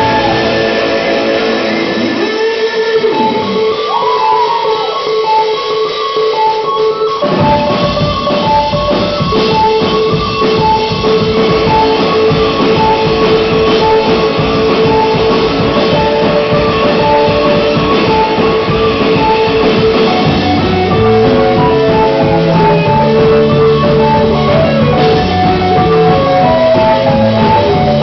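Live instrumental band of electric guitar, keyboard and drum kit playing loud, amplified music. For a few seconds only guitar and keyboard tones with gliding pitches sound; about seven seconds in the drums and bass come back in under a repeating high keyboard figure.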